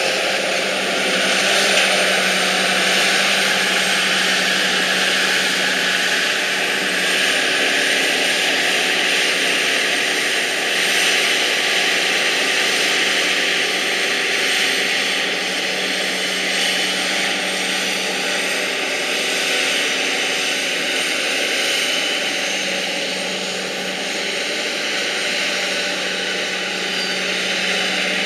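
Heavy farm machinery running steadily under load, a constant engine hum with a broad whining hiss over it.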